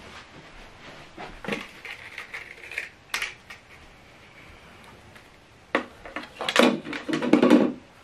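Hands handling a portable Bluetooth speaker and its cable on a table: scattered light clicks and rustles, then a louder run of knocks and scrapes about six seconds in as the speaker is lifted off its cradle.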